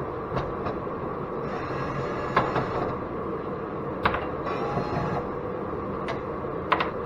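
Scattered sharp metal clicks and knocks, about seven in all, with two short scrapes, as aluminum light-fixture parts and steel screws are handled and checked with a magnet. A heater runs steadily underneath.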